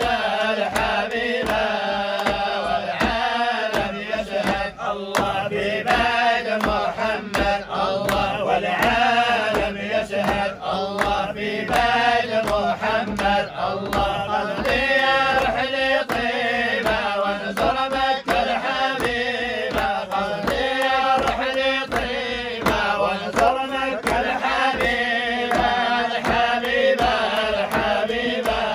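A group of men chanting a Sufi dhikr together, a continuous melodic chant with sharp regular beats keeping time.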